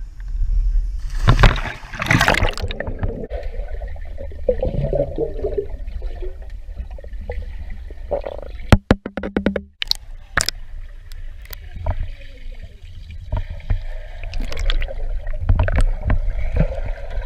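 Water splashing and gurgling over a steady low rumble, with a cluster of sharp clicks about halfway through.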